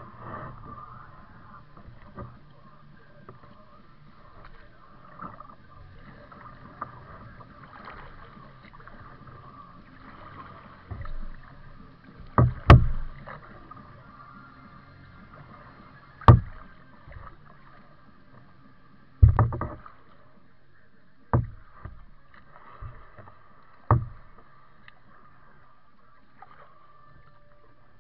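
Kayak being paddled on a calm, narrow river: a faint steady background of water and paddle strokes, broken in the second half by about six sharp knocks on the plastic hull.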